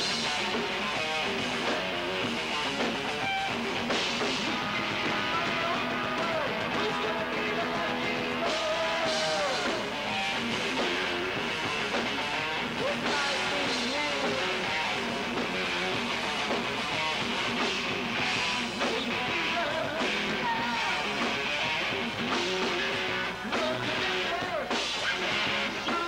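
Rock band playing live: electric guitar and drums with a singer on the microphone.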